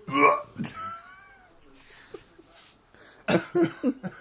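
A man's loud hiccup that comes out as a gagging, retching yelp, as if he is about to be sick, followed by a thin wavering squeal. About three seconds in, a quick run of loud bursts of laughter.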